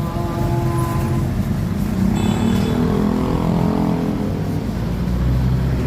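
Motor vehicle engine running, a steady low hum whose pitch rises and falls about two to four seconds in.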